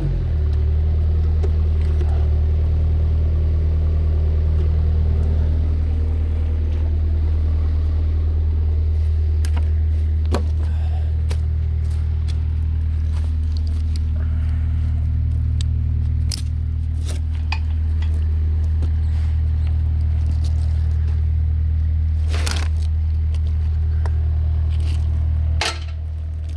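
Bobcat 331E mini excavator's diesel engine running steadily under work, with scattered sharp metallic clinks and scrapes from about a third of the way in.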